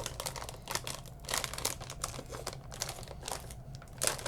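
Crinkly plastic snack bag of Takis Fuego being handled and pulled open, with many irregular crackling rustles.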